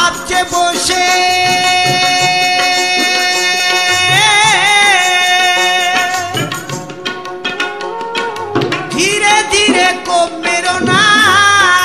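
Bengali folk song backing: long held melodic notes that waver at their ends, and a hand drum playing a quick run of strokes about two-thirds of the way through.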